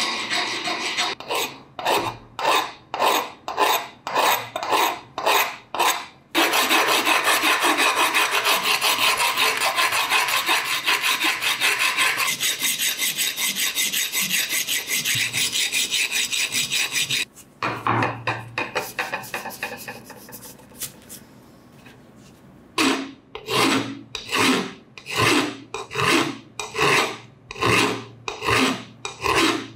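A coarse hand file rasping across the rusty steel jaw of a pincer. It goes in quick back-and-forth strokes about two a second, runs into one long unbroken scrape through the middle, eases off to a quieter lull, then goes back to separate strokes near the end.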